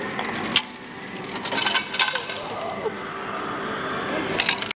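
Copper coins clinking as they are fed into a coin-pusher arcade machine and drop onto the coin pile, in single clinks and short clusters, over steady arcade background noise.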